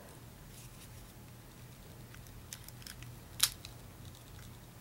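Faint handling clicks of a plastic battery pack and phone, with one sharper click about three and a half seconds in, over a steady low hum.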